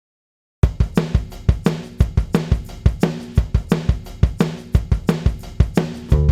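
Music: after a short moment of dead silence, a rock drum-kit beat with snare, bass drum and cymbals starts about half a second in, at about four hits a second. Bass and guitar join near the end.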